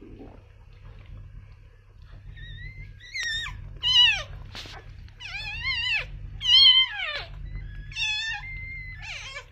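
Newborn puppy crying: a string of about seven high, squeaky cries, each rising and falling in pitch, starting about two seconds in, the loudest about four and seven seconds in.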